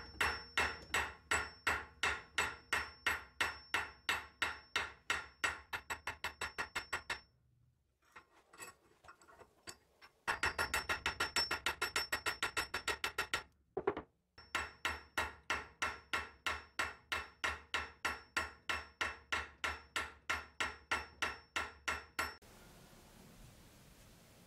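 Small hammer tapping steadily on a steel pin at the blade-to-handle joint of a cleaver, peening it to set it, about four sharp metallic taps a second. The taps come in three runs, with a faster run in the middle, and break off abruptly twice before stopping near the end.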